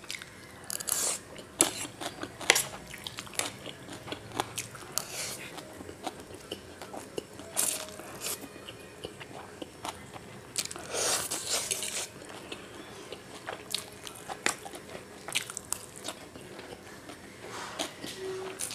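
Close-miked eating of forkfuls of chow mein noodles: wet chewing and lip smacks with many small clicks, and slurps of noodles, the longest just past the middle.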